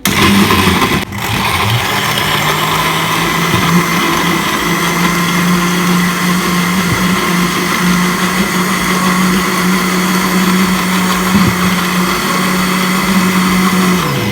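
Electric blender running, blending watermelon and pineapple into a smoothie: a steady motor hum that starts abruptly, cuts out briefly about a second in, then runs steadily and winds down in pitch near the end.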